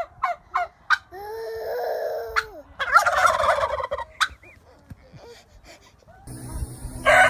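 Domestic fowl calling, likely a turkey: a drawn-out call about a second in, then a rougher rattling call around three seconds in, after a few sharp clicks at the start.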